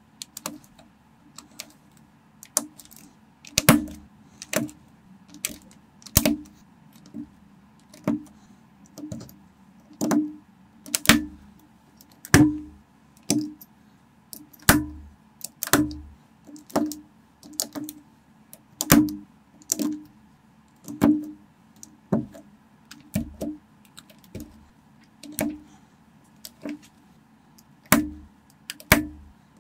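Plastic Lego-compatible bricks being pressed and snapped together by hand: sharp clicks at irregular spacing, about one a second, some louder than others.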